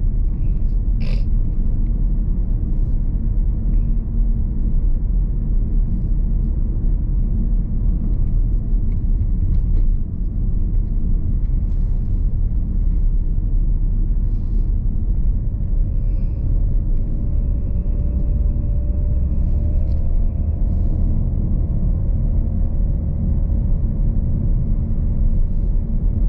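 Steady low rumble of engine and tyre noise inside a Mitsubishi Xpander's cabin as it drives along. There is a short click about a second in, and a faint steady tone joins about halfway through.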